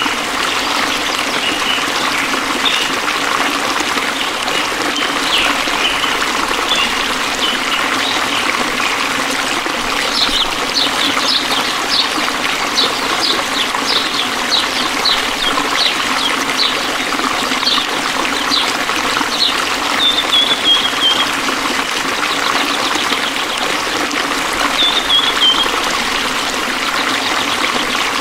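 Stream water trickling steadily, with birds chirping over it. The chirps are scattered at first, become a quick run of repeated high notes in the middle, and end with a few short falling calls near the end.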